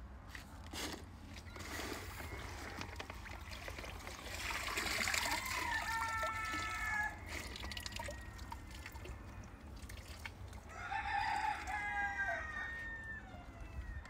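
Two long rooster crows, one about a third of the way in and another near the end. Underneath, water splashes and drips as azolla is scooped from the pond in a metal colander.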